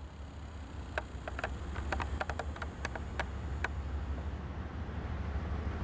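Low, steady rumble of an approaching diesel locomotive, slowly growing louder. A scatter of sharp clicks sounds between about one and four seconds in.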